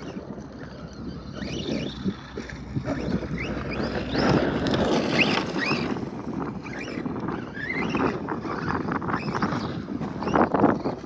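Arrma Kraton 4S V2 brushless electric RC monster truck being driven hard, its motor whining up and down in pitch again and again as it speeds up and slows, over a rough rushing noise of tyres and wind.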